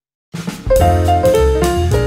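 Background jazz music with a drum kit and a low bass line, starting abruptly out of near silence about a third of a second in.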